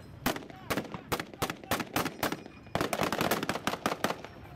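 Small-arms blank fire: scattered single shots at irregular intervals, with a rapid burst of automatic fire about three seconds in.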